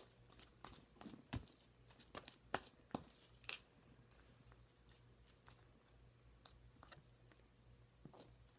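Faint sticky crackles and clicks of borax-activated glue slime being kneaded and stretched by hand, scattered and mostly in the first few seconds.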